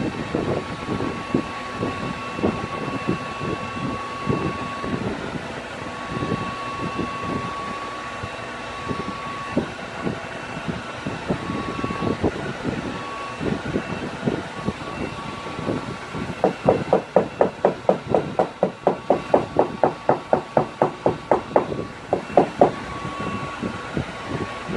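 Fast, even tapping on a vinyl bus-seat cover repair, about five taps a second for some six seconds in the latter part, done to flatten the liquid-vinyl patch and work out bubbles. Before it come irregular knocks and handling sounds on the seat.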